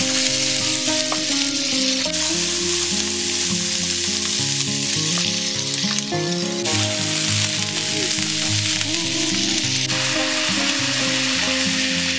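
Chicken pieces sizzling steadily on a hot electric griddle plate and being turned with a wooden spatula, with onion and cabbage tipped onto the plate partway through.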